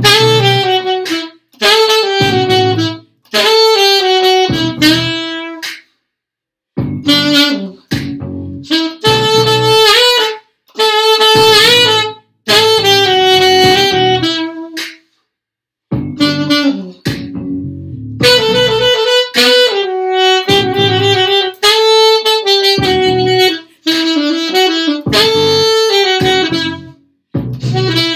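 Solo saxophone playing a melody in short phrases of one to three seconds, each followed by a brief silent pause for breath, with no accompaniment.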